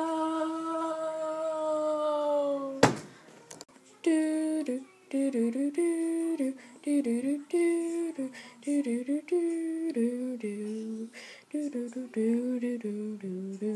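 A boy's long, drawn-out cry of 'nooo', sinking slightly in pitch, ends with a sharp click about three seconds in. From about four seconds a voice hums a tune in short stepping notes.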